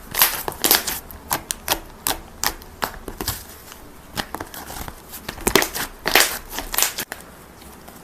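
Slime being poked and squeezed by hand, giving irregular sharp clicks and pops, about two or three a second, that bunch together more densely near the end.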